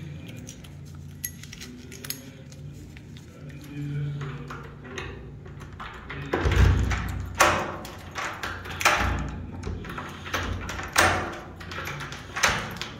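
A key being jiggled in an apartment door's lock while the lever handle is worked, which the man suspects is the wrong key. In the second half come a run of sharp thunks, about one every second and a half.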